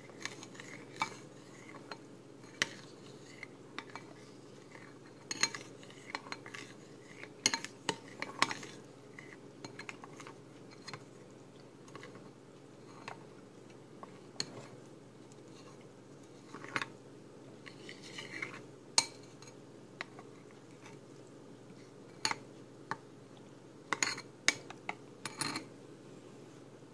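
Metal spoon stirring milk and powdered sauce mix in a mixing bowl, with irregular clinks and scrapes of the spoon against the bowl's sides.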